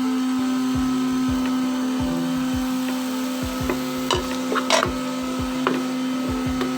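A spatula stirring and scraping chopped bitter gourd, mango and onion around a pan as they sauté, a run of soft knocks about twice a second with a few sharper clicks and scrapes between about four and six seconds in. A steady hum runs underneath.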